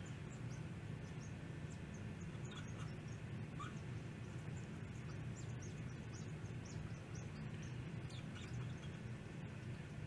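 Faint steady low hum, with many short, faint high-pitched chirps scattered throughout.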